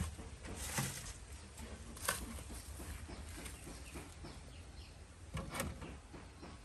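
Large plastic water jug being handled and set down over the pots on a wooden box: a few short knocks and clunks of hollow plastic, the loudest about five and a half seconds in as the rim lands.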